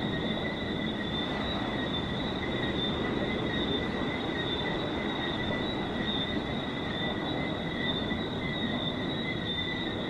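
Tropical night chorus: a steady, high-pitched calling made up of two level tones, over a low, even rush of noise.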